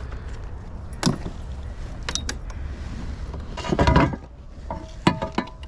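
Knocks and clattering taps of a freshly caught bass being handled and laid on a measuring board, loudest about four seconds in, over a steady low rumble.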